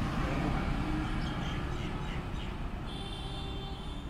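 Steady low rumble of road traffic, with scooters and motorbikes passing. A thin, high, steady tone joins it about three seconds in.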